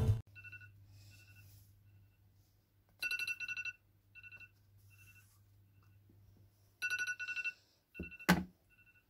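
Smartphone alarm ringing: clusters of rapid beeps on two pitches, some loud and some faint, repeating with short gaps. About eight seconds in there is a single sharp thump.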